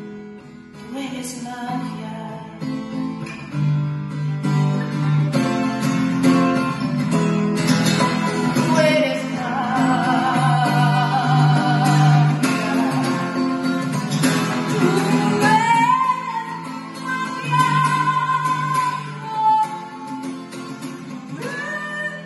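Music: acoustic guitar playing, with a higher melody line coming in over it about eight seconds in.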